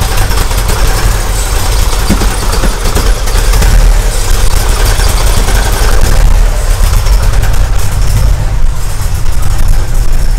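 VW T3 Syncro's water-cooled flat-four petrol engine running steadily at idle, with the engine lid open. The owner says it still does not run well after a new idle control valve and fuel pressure regulator, so the fault is still unfound.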